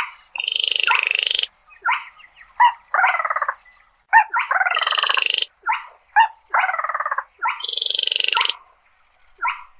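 Quốc lùn crake calling: a series of harsh, rattling calls, short croaks alternating with longer rasping notes of about a second, repeated with brief pauses.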